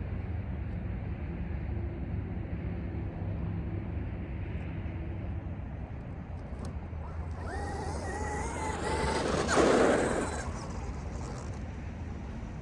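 Traxxas XRT RC truck's brushless electric motor whining in short steps as the truck is driven, then a brief loud rush of the truck passing close by, about ten seconds in. A steady low outdoor rumble runs underneath.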